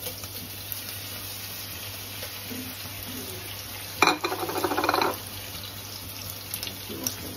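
Cornflour-coated raw chicken pieces sizzling in hot oil in a frying pan with sliced onions and green chillies, stirred with a spatula. A louder burst of clatter and sizzle comes about four seconds in.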